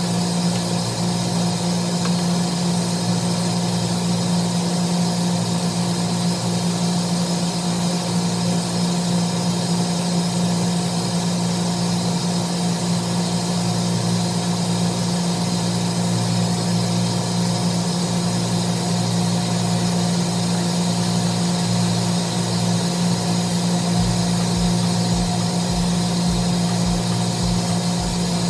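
Steady hum of steam-room machinery, pumps and motors running at a constant pitch with no change. A low rapid pulsing joins underneath near the end.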